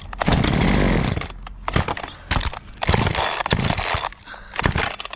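A two-stroke chainsaw is being pull-started on a shot of ether. It sputters in two short bursts about two seconds apart, with sharp knocks in between, and dies each time. The saw is not getting enough fuel.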